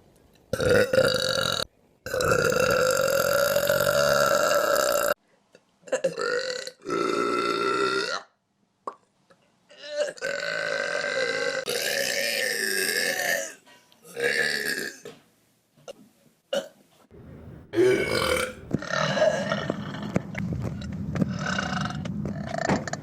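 A string of loud, drawn-out human burps, one after another with short gaps between them. The longest are held for about three seconds each, and a long one runs through the last several seconds.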